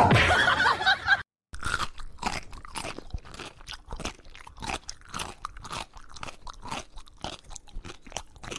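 A cat biting and chewing on a white fabric sneaker: a run of irregular crunches, a few each second. Before it, in the first second, there is a brief louder noisy sound, then a moment's break.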